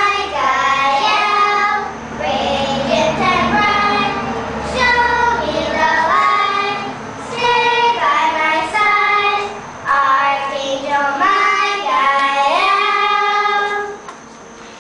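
Young children singing a song in a series of held, sung phrases; the singing stops about fourteen seconds in.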